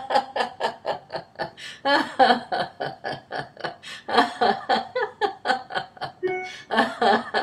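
A woman laughing heartily and continuously in quick 'ha-ha' pulses, about five a second, with short breaks about two seconds in and near the end. It is deliberate laughter-yoga laughter, a 'celebration laughter' exercise.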